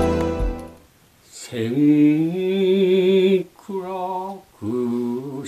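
A man's solo unaccompanied voice chanting shigin (Japanese recited Chinese-style poetry), with long drawn-out notes and a wavering vibrato. It comes in about a second and a half in, in three held phrases, after instrumental music fades out in the first second.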